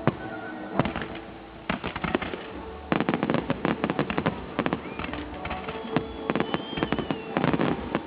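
Fireworks going off: a few separate bangs, then a dense barrage of rapid bangs and crackling from about three seconds in.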